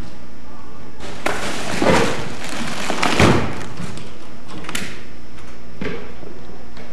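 Rustling, scraping and bumping as large fabric-covered stage backdrop panels and props are moved, loudest about two and three seconds in, with two shorter knocks later. A steady hiss runs underneath.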